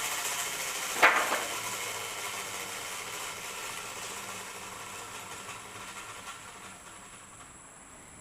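Circular saw machine running down, its whirring noise fading steadily away, with one sharp knock about a second in.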